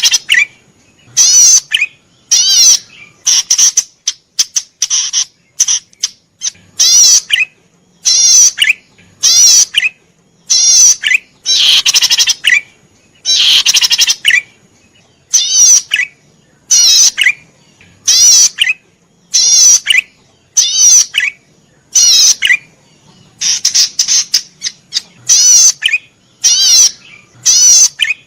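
Cici padi merah, a small cisticola, singing actively: short bursts of rapid, trilled notes, repeated about once a second with brief gaps between them.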